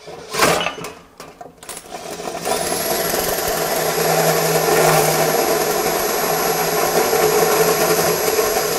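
A power drill cutting a hole through sheet-steel truck fender with a bimetal hole saw, run dry without lube: a few clicks and scrapes as the pilot bit and teeth start to bite, then from about two and a half seconds in a steady grinding cut with a high motor whine over it.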